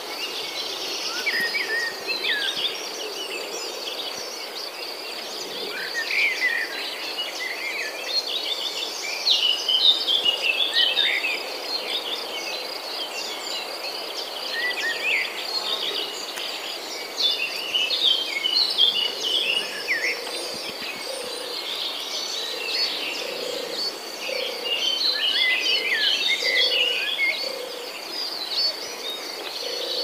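Several songbirds chirping and twittering in quick, overlapping calls, over a steady high-pitched insect drone.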